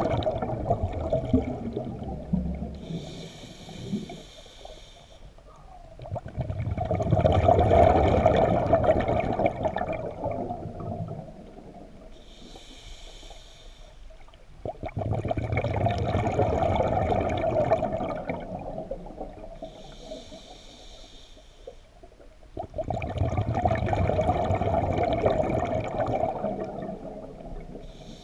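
A scuba diver breathing through a regulator underwater: three long bubbling rushes of exhaled air, about eight seconds apart, with the quieter hiss of inhaling through the regulator between them.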